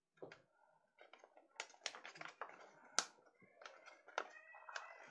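A sheet of paper being folded by hand into an origami ship: crisp rustling and crackling of the paper, with one sharp crack about three seconds in.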